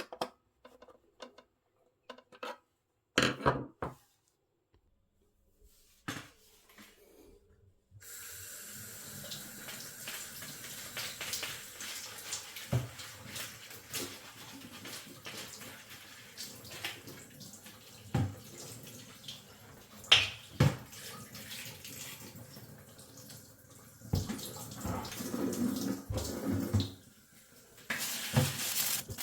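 A few scattered clicks and knocks, then, about eight seconds in, a water tap starts running into a sink, with parts knocking as they are handled and washed under the stream; the flow dips briefly near the end.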